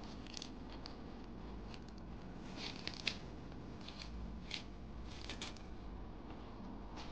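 A metal spoon scraping the seeds and white membrane out of a halved jalapeño pepper: a run of short, scratchy strokes, the sharpest about three seconds in.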